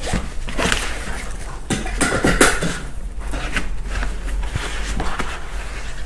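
A car's three-point seat belt webbing rustling and sliding as it is pulled and routed through the plastic impact shield of a child car seat, with a few short knocks from handling the belt and shield. The rustle is densest about two seconds in.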